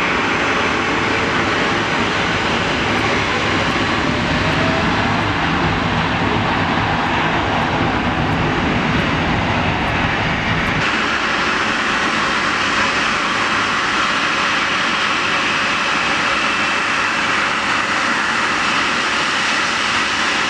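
The four GEnx turbofan engines of a Boeing 747-8F freighter at takeoff power, a loud steady jet roar during the takeoff run. About halfway through, the sound changes abruptly, losing some of its deep rumble and becoming hissier.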